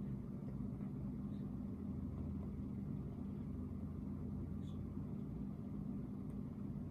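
Steady low background hum with no speech, and a couple of faint soft clicks in the middle.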